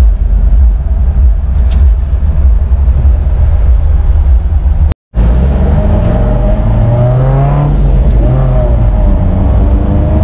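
Off-road Gypsy engines running on the drive, a dense low rumble. After a brief dropout about halfway, an engine revs up and down, its pitch rising and falling.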